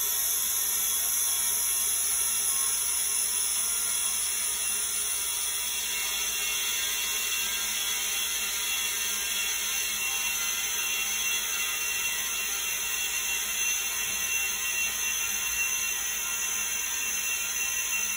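Compressed air from an air-compressor inflator hissing steadily into a UTV sand tire to seat its bead on a beadlock wheel. The hiss is high and even.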